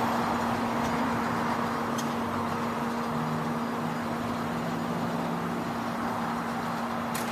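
Fire station's motor-driven overhead garage door closing: a steady motor hum with a couple of faint clicks.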